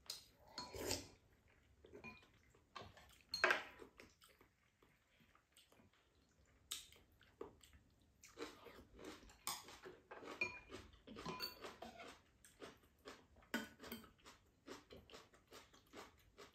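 Scattered light clicks and taps of chopsticks and spoons against ceramic bowls, with chewing, as two people eat a meal. The sharpest tap comes about three and a half seconds in.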